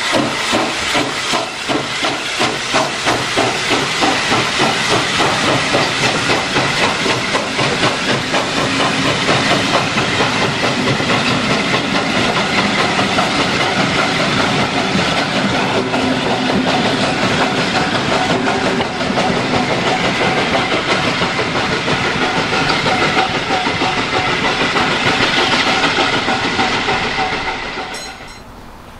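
Steam tank locomotive working hard as it pulls a train of carriages away, its exhaust beats quickening as it gathers speed over a constant hiss of steam. The sound drops away near the end.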